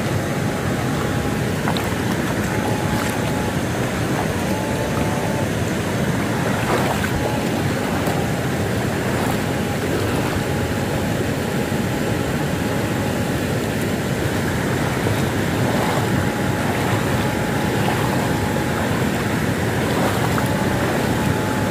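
Steady rushing and splashing of a shallow forest stream at close range, with a faint high tone that comes and goes several times.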